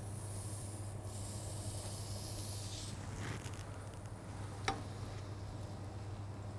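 An oiled zucchini slice sizzling on a hot ridged grill pan, a hiss that dies away about three seconds in. A single sharp click comes a little later.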